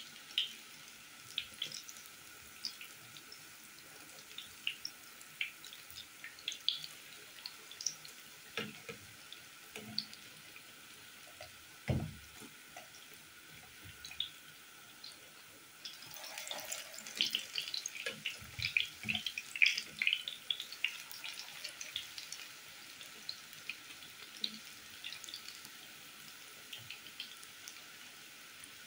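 Tuna fritters shallow-frying in hot oil: a steady sizzle with scattered small pops and crackles that grow busier for several seconds past the middle. A single dull knock comes about twelve seconds in.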